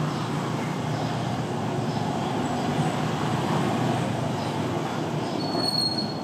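Steady rumbling background noise with no clear events, and a brief high tone near the end.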